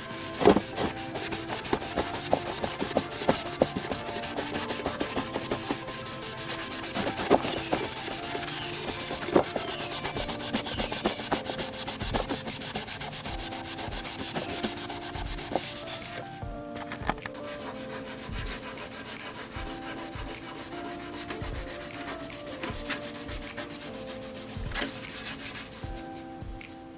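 Maroon Scotch-Brite abrasive pad scrubbed by hand over primer on a motorcycle fairing, in quick back-and-forth strokes that scuff the shiny spots dull so the paint can grip. The scrubbing is louder for the first two-thirds and softer after that, with background music underneath.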